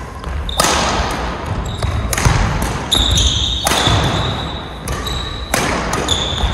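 Badminton rally: rackets strike the shuttlecock with a sharp hit every second or so, and shoes squeak on the court floor between hits.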